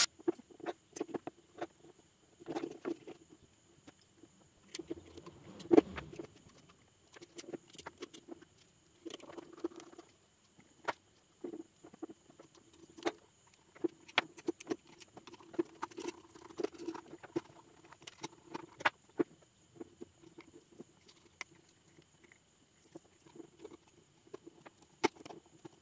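Handling noise of small plastic speaker parts being fitted together: irregular clicks, taps and rustles as the plastic inner frame and wiring are pushed into the speaker's plastic shell, with a sharper knock about six seconds in. A faint steady high whine sits underneath.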